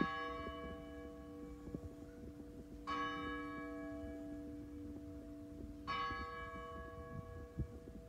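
Church bell in the tower tolling slowly: three strokes about three seconds apart, each ringing on into the next, with its lower hum sustaining between strokes.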